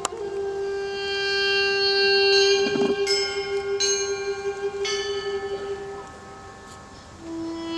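Russian Orthodox church bells ringing, with several strokes in the middle, over a duduk holding one long note that drops to a lower note near the end.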